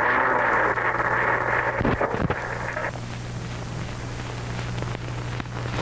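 A car's engine running, heard through an old film's optical soundtrack, with a couple of knocks about two seconds in. It cuts off abruptly about three seconds in, leaving the steady hum and hiss of the worn 16 mm soundtrack, and a sharp click comes at the very end.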